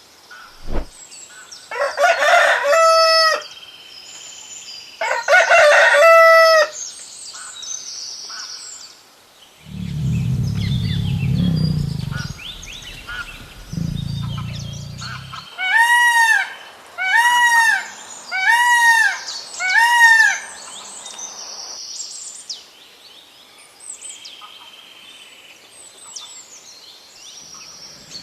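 A rooster crowing twice, then a low rumbling sound for several seconds, then four short rising-and-falling bird calls, with small birds chirping in the background.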